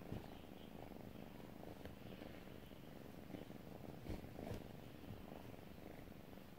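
Kitten purring, a faint steady rumble, with a few faint soft rustles about four seconds in as it paws at a leather strip on the sofa.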